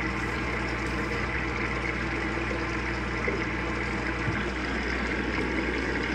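Avanti top-load washing machine filling: water pouring steadily into the sudsy tub, with a steady low hum beneath.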